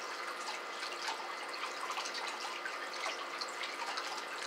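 Patio water fountain trickling steadily into its basin, with many small drips and splashes.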